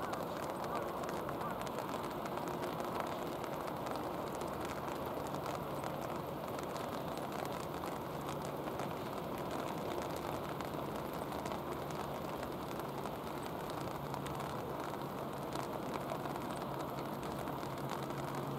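Steady rain falling, an even hiss with fine patter, and a faint low hum beneath it.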